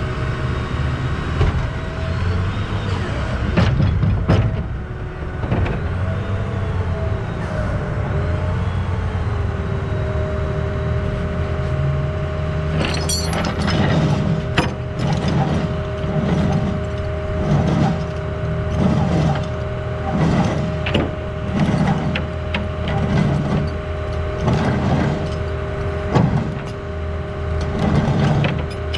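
Rollback tow truck running with its winch paying out cable as the cable is dragged down the bed. A steady whine sets in about a third of the way through, and low rhythmic clunks come about once a second in the second half.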